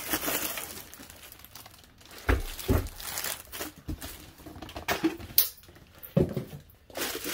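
Plastic packaging bag crinkling and a cardboard box being handled, with a few dull knocks as the wrapped desoldering station base unit is lifted out.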